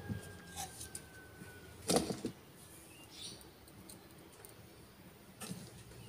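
Light clicks and taps of small parts being handled on a wooden model RC truck chassis, with one louder knock about two seconds in.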